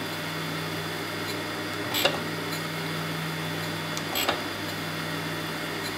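Jones and Shipman 540 surface grinder running: its wheel grinds a thin milling-machine vise jaw under flood coolant, a steady hum with a hiss, broken by a short sharp knock about every two seconds.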